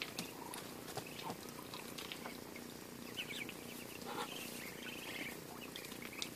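Faint, scattered peeping and soft chirps from a pen of Muscovy ducklings and ducks, with a few light clicks.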